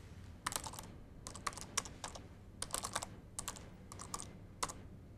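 Typing on a laptop keyboard: quick, irregular bursts of key clicks with short pauses between them, starting about half a second in and stopping shortly before the end.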